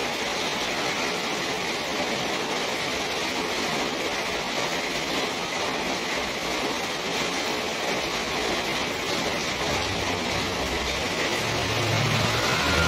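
Steady rain falling, an even hiss. Near the end, a vehicle engine's low hum builds and grows louder.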